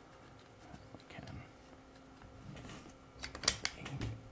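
Metal-on-metal clicks and clinks of the rifle's takedown bolt being worked loose from the receiver. Quiet handling at first, then a quick cluster of sharp clicks about three seconds in.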